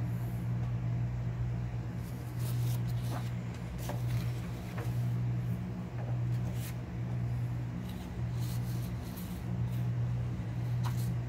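Steady low hum with scattered light clicks and scratches over it.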